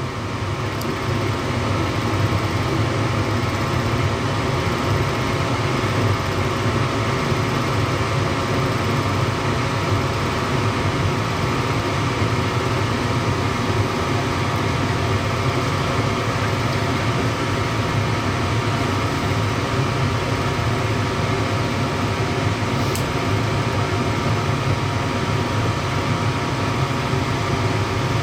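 Janitrol GMP 80% gas furnace running on a call for heat: the draft inducer motor and the gas burners run steadily. No blower fan starts and no motor hum is heard, the symptom of a failed furnace fan motor.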